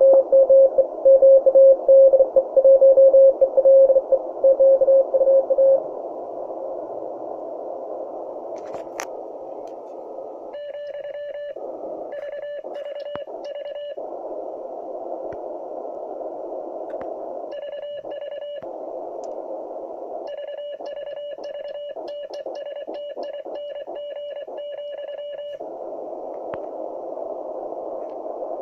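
Shortwave CW receiver audio from a QRP transceiver: narrow-filter band hiss with a strong Morse code signal keying at a pitch near 550 Hz for the first six seconds. From about ten seconds in, the hiss cuts out in several stretches while a buzzier keyed Morse tone plays, the transceiver's sidetone with the receiver muted.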